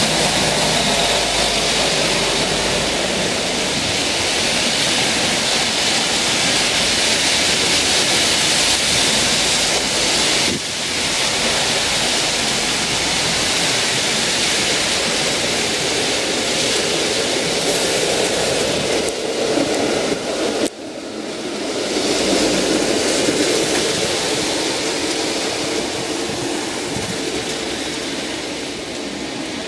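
Street traffic on a slushy winter road: a steady, loud hiss of car tyres on wet slush, with passing vehicles. The noise dips briefly twice, about ten and twenty seconds in.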